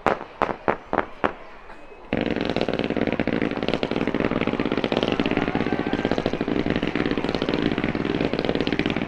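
Aerial fireworks at close range: a quick run of sharp, separate bangs, then about two seconds in a sudden dense, continuous rapid-fire crackle of many small reports.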